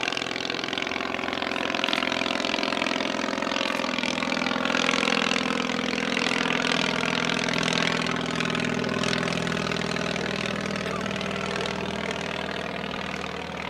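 Small propeller aircraft, the English Electric Wren with its 398cc ABC motorcycle engine, flying past with a steady, buzzing engine note that sinks slightly in pitch in the second half.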